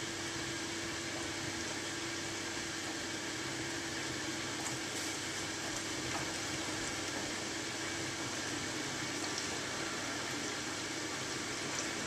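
Neff integrated dishwasher in the wash phase of its Eco 55 programme: a steady rush of water sprayed around inside the shut tub, over a steady low hum.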